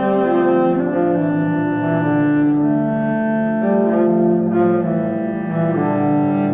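Background music: bowed strings, cello and double bass, playing slow sustained notes that change every second or so.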